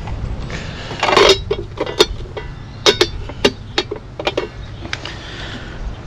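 A scatter of light clicks and clinks from hands handling small hard parts, with a short scrape about a second in, over a low steady rumble.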